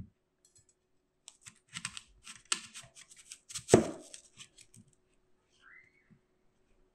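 A chef's knife crunching through a crisp apple in a run of crackly snaps, ending in a loud knock about four seconds in as the blade meets the bamboo cutting board.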